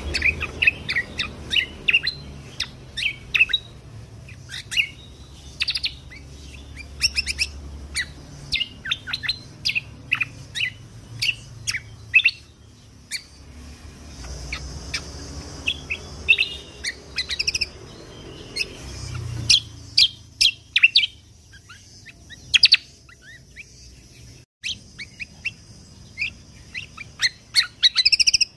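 Cucak kombo (kecial kombok) songbird singing a rapid, continuous string of short, sharp high chirps and trills, with a short pause near the end. This is the full 'tembakan' burst-style song used as a training recording for competition songbirds.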